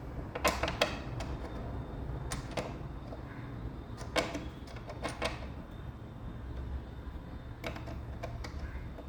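Scattered sharp clicks and light clatter of small metal screws and nuts and plastic sofa legs being handled, over a low steady hum.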